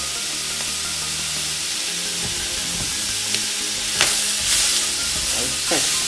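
Vegetables and sliced garlic sizzling in hot sesame oil in a frying pan while being stirred with a spatula; the sizzle swells louder about four seconds in and again near the end.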